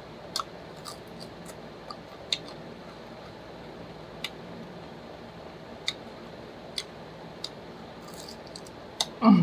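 Close-miked chewing: scattered sharp crunches and mouth clicks, irregular and a second or more apart, as a small piece of garlic is bitten and chewed. A short voiced sound comes right at the end.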